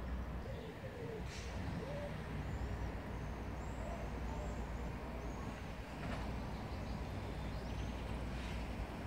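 Steady low rumble of distant traffic, with small birds chirping: a run of short high chirps in the middle and a few more near the end.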